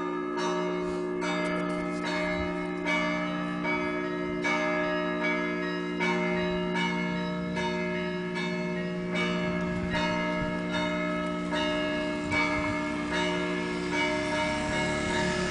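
Orthodox church bells ringing a festive peal: several bells struck in a quick, uneven rhythm over the long ring of larger, lower bells.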